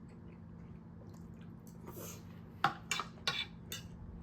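A few sharp clinks and short scrapes of cutlery on a plate, starting about two and a half seconds in, over a faint steady hum.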